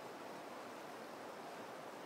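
River rapids rushing over rocks: a steady, even wash of whitewater noise.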